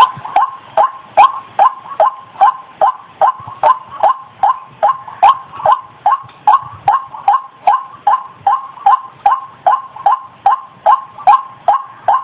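White-breasted waterhen (ruak-ruak) calls in an unbroken series, about two and a half a second, each a short falling croak; a lure-call recording for trapping the bird.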